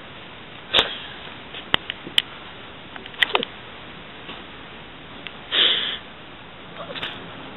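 Scattered clicks and knocks from a handheld camera being moved about, with one short, louder burst of hiss a little over five seconds in.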